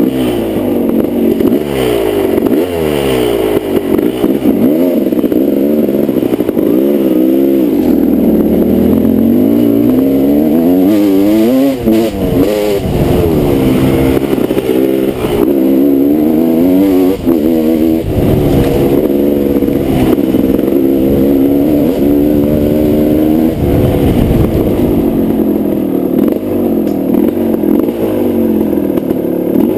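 Kawasaki KX250 dirt bike engine under load, its pitch rising and falling again and again with the throttle and gear changes while the bike is ridden along a rough trail.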